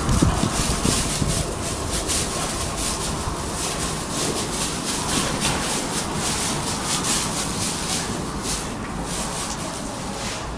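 Dry straw bedding rustling and crackling in quick, irregular crunches as a Rottweiler walks and noses through it. There is a heavier thump right at the start.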